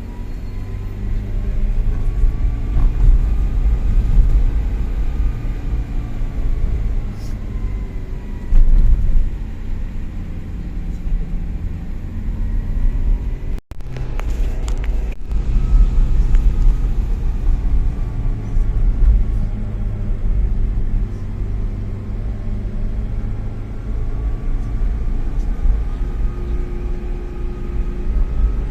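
A car's engine and road rumble while driving, the engine's pitch rising and falling as it runs; the sound drops out for a moment about 14 seconds in.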